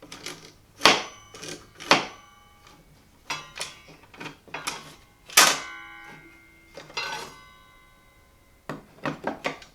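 Hard clacks and knocks of the table-saw guard's gravity-balanced plexiglass side pieces being moved and dropping back, around fifteen separate strikes. A few of them ring briefly, the loudest about five and a half seconds in, with a quick run of clacks near the end.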